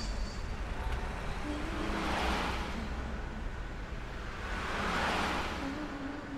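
Road traffic: two vehicles pass, each swelling and fading, about two seconds and five seconds in, over a steady low rumble, with faint held musical tones underneath.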